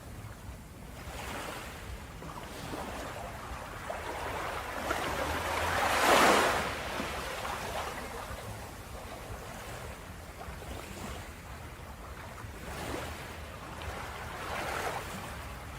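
Ocean surf washing onto a beach, a steady rush of waves with one big wave breaking about six seconds in and smaller ones swelling near the end.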